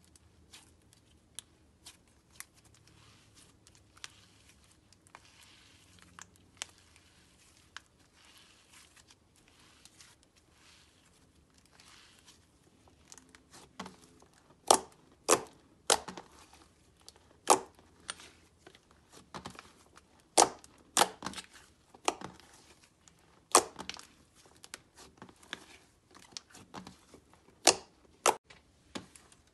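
Hands squeezing and pulling thick white slime, making sticky clicks and pops. The clicks are soft and scattered at first; about halfway through they turn into loud, sharp pops, one or two a second, as the slime is pulled apart and pressed.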